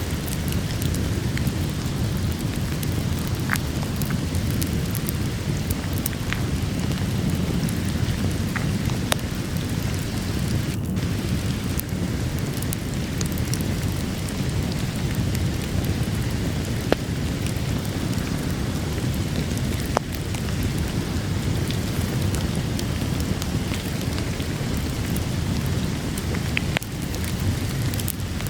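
Steady heavy rain with a deep, low-pitched wash, dotted with scattered sharp pops and crackles from a wood fire.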